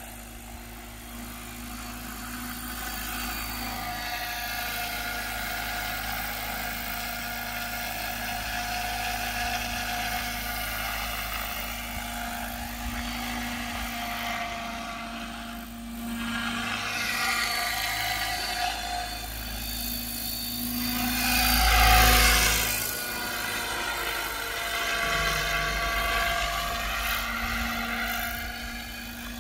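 Radio-controlled Align T-Rex 600 helicopter in an MD500 Defender scale body, flying: a steady whine of rotors and motor that swells to its loudest about 22 seconds in as it passes close, its pitch bending up and down as it flies by.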